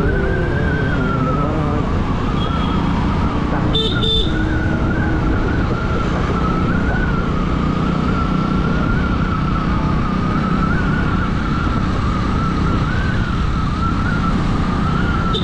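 Motorbike riding along a city road: steady engine and wind rumble with a wavering high whine running over it, and two short high beeps about four seconds in.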